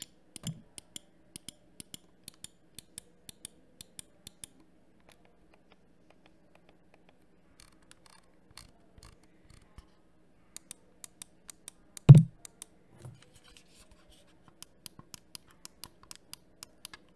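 Logitech G Pro X Superlight gaming mouse buttons clicking on their Omron 20M switches: crisp, evenly spaced clicks, about three a second, in three runs. A single dull, louder thump comes about twelve seconds in.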